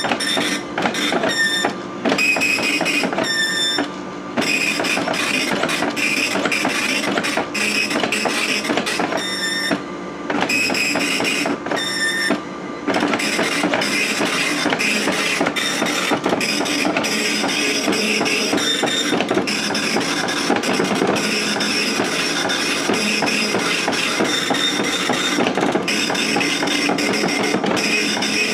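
Okidata Pacemark 3410 9-pin wide-carriage dot matrix printer printing lines of text: the print head buzzes as it shuttles across the paper. There are a few short pauses between lines in the first half, then it prints without a break.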